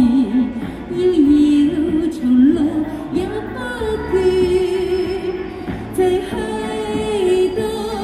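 A woman singing a Chinese pop song into a handheld microphone over backing music, holding long, wavering notes.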